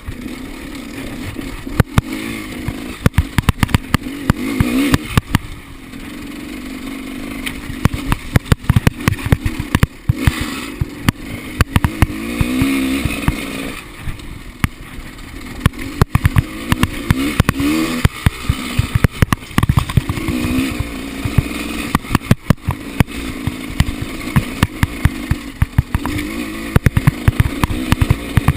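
Enduro dirt bike engine revving up and down again and again, with frequent sharp knocks and clatter.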